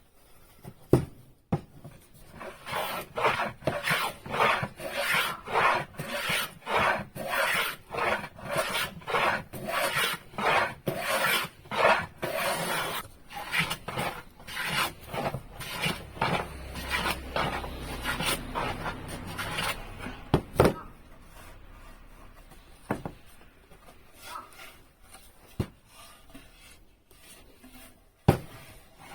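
A hand tool is worked back and forth on wood in steady scraping strokes, about two a second, for some ten seconds. Fainter, irregular rubbing follows, with a few sharp wooden knocks.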